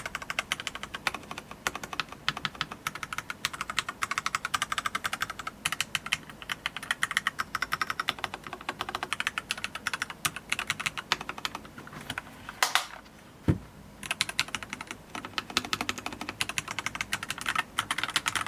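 Fast continuous typing on a PCMK Pulsar TKL JP tenkeyless mechanical keyboard with Kailh Box Red linear switches, rapid keystroke clicks. About two-thirds through the typing stops briefly, with a couple of louder single knocks, then picks up again.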